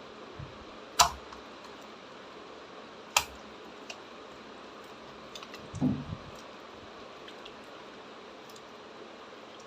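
Slime being handled: two sharp clicks about a second and three seconds in, then a short soft squelch about six seconds in, over a steady faint hiss.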